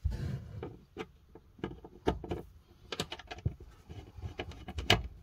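Hands fitting a plastic wall socket panel back into place: a run of irregular sharp clicks, taps and knocks of plastic against the wood panel.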